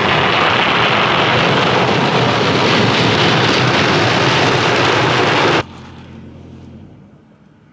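Automatic car wash heard from inside the car: water spray and rotating brushes on the windshield and body make a steady, loud rush of noise. It cuts off abruptly about five and a half seconds in, leaving a much quieter low hum.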